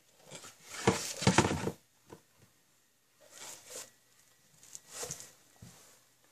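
DVD box-set packaging being handled: a loud scraping slide about a second in, then softer rustles and a brief soft knock near the end.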